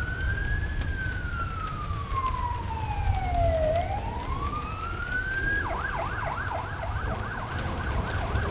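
A siren wailing in slow rises and falls, then switching about five and a half seconds in to a fast yelp of about three sweeps a second, over a low rumble.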